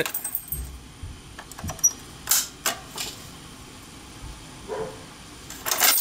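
A Notifier fire alarm pull station being reset: keys jangle and its metal cover and lock click as it is unlocked and opened. Several sharp clicks come about two to three seconds in, and a louder rattle near the end.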